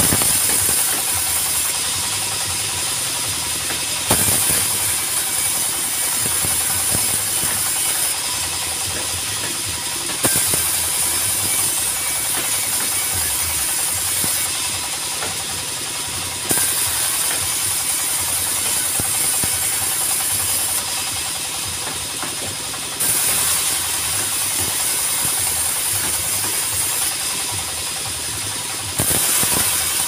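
Engine-driven sawmill saw ripping mahogany boards, a steady mechanical whine and hiss over the engine's run. The sound jumps louder about every six seconds, five times, as each fresh board is fed into the blade, then eases off.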